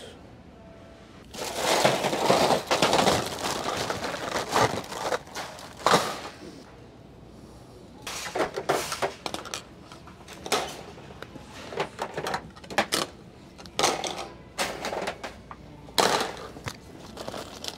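Plastic plumbing fittings clattering and clacking as they are rummaged through and picked out of wire store bins. A few seconds of continuous rattling come about a second in, then irregular short clacks and rattles follow.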